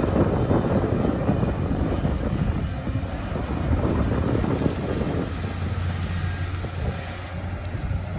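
Excavator engine running steadily, a low rumble with a steady hum underneath in the second half.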